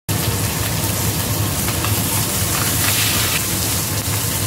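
Whole fish sizzling steadily as it fries in hot oil in a nonstick frying pan, over a low steady hum, with a wooden spatula scraping and moving the fish in the pan a few times.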